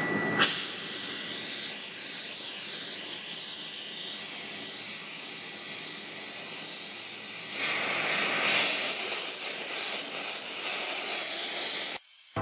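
Hot forged steel bar quenched in water, hissing and sizzling as steam boils off, with a surge of stronger hiss about two-thirds of the way through.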